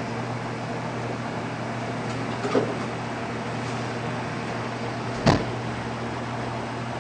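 Steady hum of an electric fan on its lowest setting, with two knocks, a soft one about two and a half seconds in and a sharper, louder one about five seconds in.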